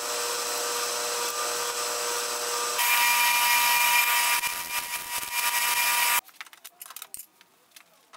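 Hand file rasping against a small bronze workpiece spinning in a metal lathe, over the lathe's steady whine. About three seconds in it grows louder and the whine higher; just after six seconds it cuts off suddenly, leaving a few faint clicks.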